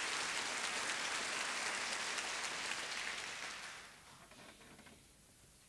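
Theatre audience applauding, the clapping thinning out and dying away about four seconds in.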